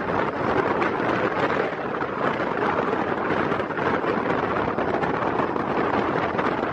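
Passenger train running at speed heard from on board: a steady rush of wind on the microphone over the continuous rumble of wheels on the rails.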